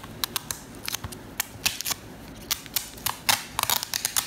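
Irregular sharp plastic clicks and snaps from a clear Blu-ray case as fingers pry at the security piece clipped on its top edge, coming in quick clusters about three seconds in.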